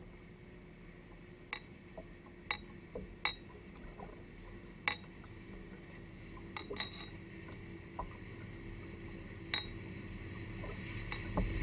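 Small sharp clinks with a brief ring, irregularly spaced about every second or two, on a hard plastic kayak rigged with fishing gear, over quiet water. In the last couple of seconds a boat motor's low rumble starts to grow as the boat approaches.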